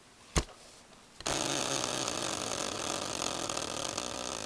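A single sharp knock, then a spinning red-and-black wheel set going about a second in, its rapid clicking running on evenly and just beginning to slow as it spins down.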